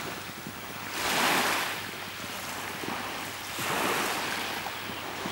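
Small waves washing up the beach, swelling about a second in and again near four seconds, then easing back.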